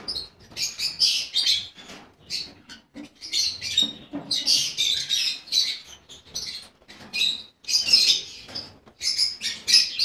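A lovebird colony chattering: many high-pitched chirps overlapping in quick clusters, with brief lulls between them.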